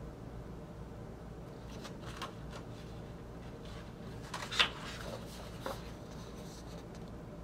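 Pages of a large paper booklet being turned and handled: a few short paper rustles, the loudest a little over halfway through.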